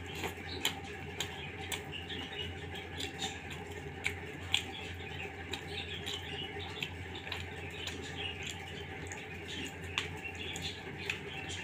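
Eating by hand: fingers squishing and mixing bhuna khichuri on a metal plate, along with mouth sounds. Many small, irregular wet clicks and smacks sit over a steady low hum.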